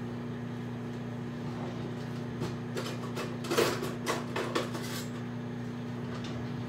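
Kitchen cutlery clinking and knocking as a knife is fetched from among the utensils. There are a handful of short clinks between about two and five seconds in, over a steady low hum.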